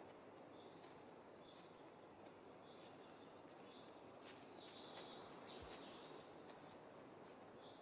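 Near silence: faint outdoor background hiss with scattered short, high chirps of small birds.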